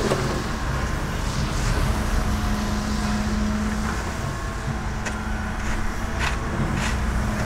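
Diesel engine of a Hitachi wheeled excavator running steadily with a low drone, with a few short scrapes of a snow shovel about five, six and seven seconds in.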